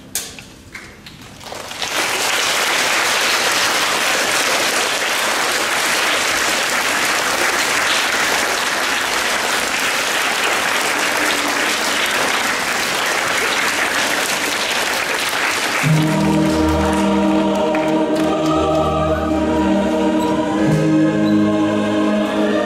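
Audience applauding, starting about two seconds in and going steadily. About sixteen seconds in, the applause gives way to a choir singing long held notes.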